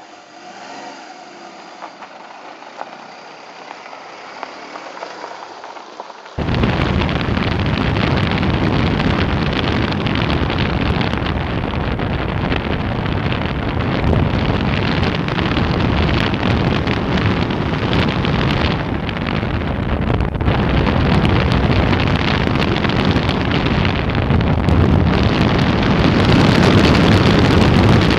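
Wind rushing over the microphone of a camera mounted on a hang glider in flight: a loud, even rush that starts suddenly about six seconds in, after a quieter opening, and grows louder near the end.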